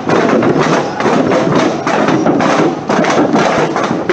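Loud, dense percussive banging and knocking in a quick, uneven rhythm.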